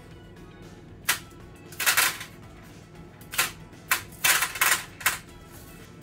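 Dried baking beans dropped by the handful into a pastry ring to weigh it down for blind baking, rattling in short clusters of clicks, several times and most densely in the second half.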